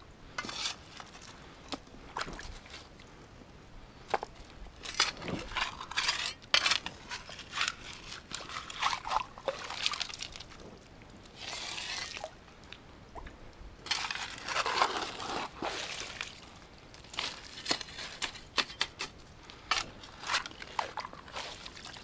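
Shallow creek water splashing and sloshing in short, irregular bursts as someone works in the creek bed, over a steady low trickle.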